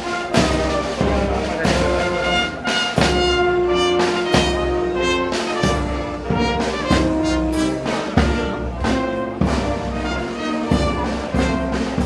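Brass band playing a slow march: held brass notes over steady drum beats.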